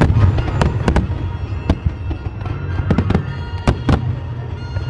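Aerial fireworks shells bursting in quick succession: about ten sharp bangs, irregularly spaced, over a continuous deep rumble of booms.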